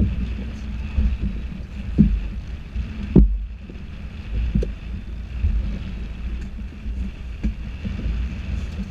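Sport-fishing boat at sea: a steady low rumble and hum with wind on the microphone, broken by a few sharp knocks, the loudest about two and three seconds in.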